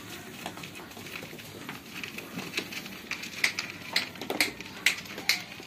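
Shami goats feeding and jostling at a wooden feed trough: sharp clicks and taps that come more often and louder in the second half, at about two a second.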